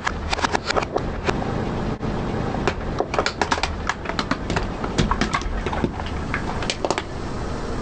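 Green plastic toy army men cracking and snapping under a car tyre, in several runs of sharp cracks, over the car's low steady rumble.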